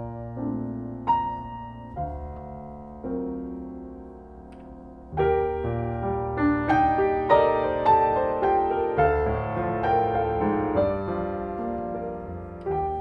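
Solo piano playing slow, sparse chords that grow into a fuller, busier passage about five seconds in.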